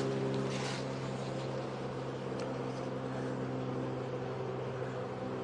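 Honeybees humming around an open hive: a steady, even drone that holds without a break.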